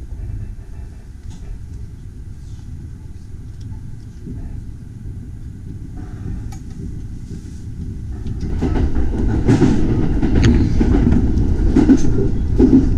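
A local train heard from inside the driver's cab, running along the track. Its low rumble grows much louder about two-thirds of the way in as the train picks up speed, and scattered sharp clacks come through the rumble.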